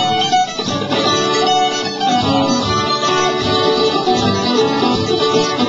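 Live acoustic folk instrumental: acoustic guitar and a small plucked string instrument strumming steadily, with a harmonica playing held notes of a melody over them.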